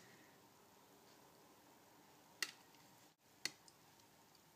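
Near silence broken by two light clicks about a second apart: metal kitchen utensils tapping a ceramic plate while vegetables are sliced.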